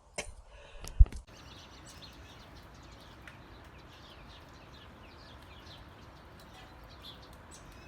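A couple of sharp knocks in the first second, then small birds chirping faintly and repeatedly over a steady outdoor background hiss.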